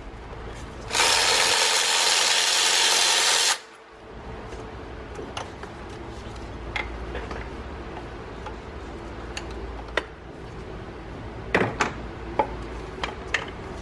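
A power tool runs for about two and a half seconds, starting about a second in and stopping abruptly, as it undoes a 13 mm bracket bolt. After that come scattered light clicks and knocks of tools and metal parts being handled.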